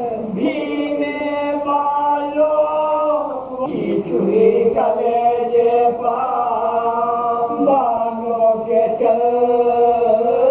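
Soz-khwani: a group of men chanting an Urdu marsiya (elegy) in unison without instruments, a lead reciter with supporting voices, in long, drawn-out melodic lines. There is a brief break in the line about three and a half seconds in.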